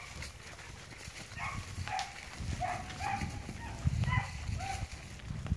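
Dull hoofbeats of a saddled horse loping on soft dirt, with short high calls repeating irregularly over them.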